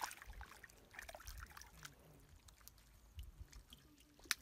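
Faint small splashes and squelches of a foot wading through shallow muddy water, with scattered ticks and one sharp click near the end.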